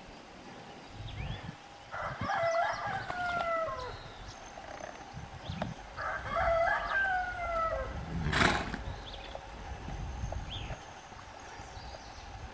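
Two drawn-out animal calls, each falling in pitch, about four seconds apart, then one short sharp noisy burst like a snort.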